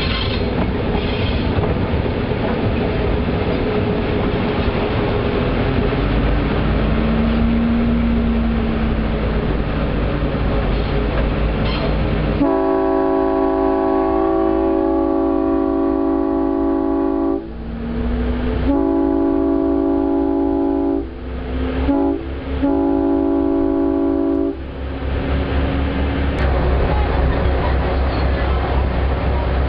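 Whitcomb locomotive's horn sounding the grade-crossing signal: two long blasts, a short one and a final long one, about halfway through. Under it runs the steady rumble of the train rolling along the track.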